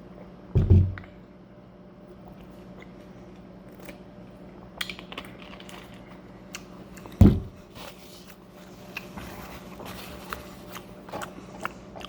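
Close-up eating sounds: small clicks and crackles of chewing and handling food, with two dull low thumps, one near the start and one about seven seconds in, over a faint steady hum.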